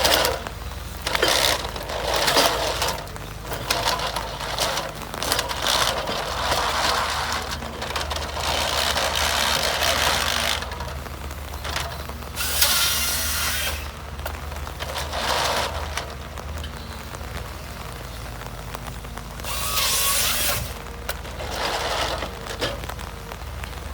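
Forestry harvester at work: a steady low engine hum, with repeated noisy mechanical bursts of one to three seconds each from the harvester head.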